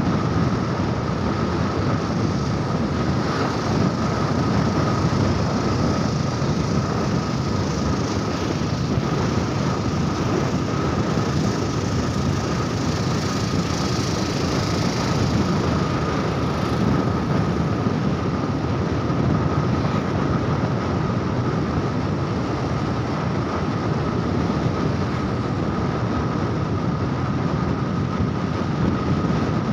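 Motorcycle riding at a steady speed on an open road: an unbroken rush of engine, tyre and wind noise, with a thin steady whine above it.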